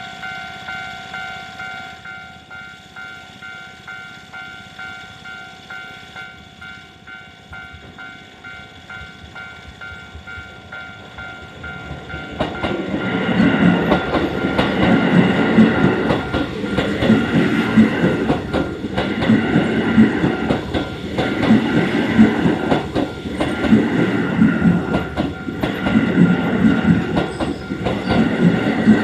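Japanese level-crossing alarm ringing with a steady pulsing two-tone ding. About twelve seconds in, a Keio 8000 series electric train arrives and passes slowly, its wheels clacking rhythmically over the rail joints while the crossing alarm keeps ringing underneath.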